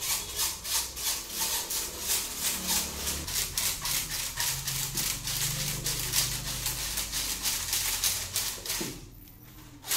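Electrical wires being pushed through by hand, rubbing in quick, even strokes of about four a second, which stop near the end.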